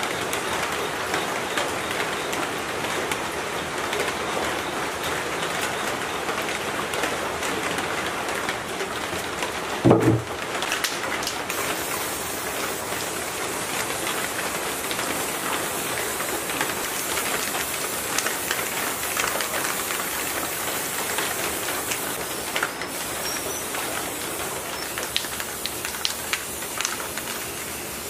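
Aerosol spray-paint cans hissing steadily as machine parts are sprayed, with a brief louder knock about ten seconds in.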